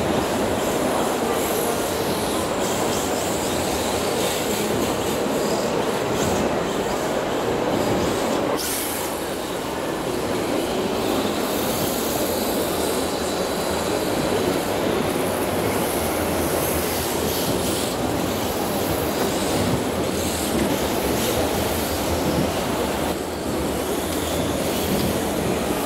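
Steady noisy din of radio-controlled drift cars running and sliding on a hall floor, their electric motors and hard drift tyres mixed with the hall's background noise. The sound dips briefly about nine seconds in.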